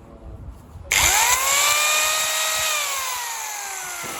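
Electric sander switched on: its motor whines up to speed about a second in, runs steadily for about a second, then is switched off and winds down with a falling whine. It is a test run after its cracked cooling fan was trimmed on the opposite side to restore balance.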